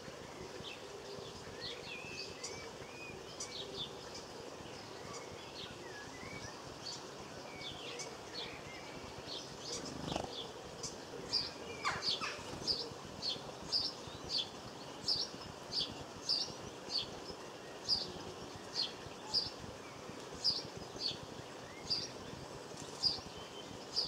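Small garden songbirds calling. There is assorted chirping and twittering at first. From about halfway on, one sharp, high, short call repeats about one and a half times a second. Near the middle there is a soft low thump and a single falling whistle.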